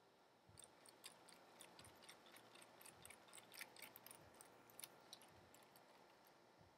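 Faint, irregular little clicks and ticks of a small screw being worked and turned into a standoff through the bottom of an electronics case. They start about half a second in and thin out near the end.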